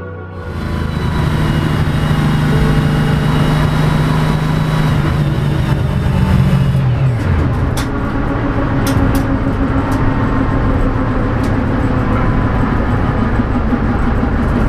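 A car engine running at steady high revs, then falling off in pitch about seven seconds in, followed by several sharp cracks.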